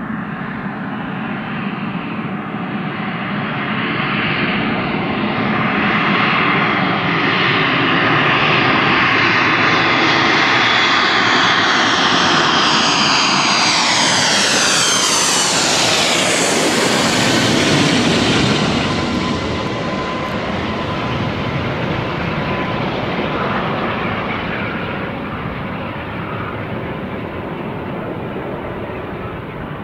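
Boeing 737-200's Pratt & Whitney JT8D turbofans as the jet flies past on final approach to land: the noise builds to a peak, the engine whine sweeps down in pitch as it passes, then slowly fades.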